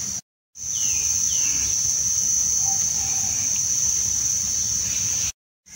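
Steady high-pitched drone of insects, crickets or cicadas, with two short falling bird chirps about a second in. The sound cuts out completely for a moment just after the start and again near the end.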